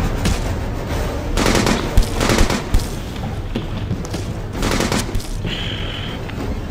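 Film soundtrack of action sound effects over a low, rumbling score: bursts of harsh noise between about one and a half and three seconds in and again near five seconds, with three sharp bangs in quick succession around two to three seconds in, the loudest sounds here. A short high tone sounds near the end.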